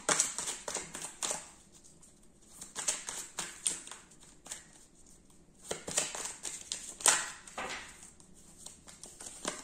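Tarot cards being handled: irregular rustling, sliding and light tapping of the cards in short bursts, with quiet gaps between.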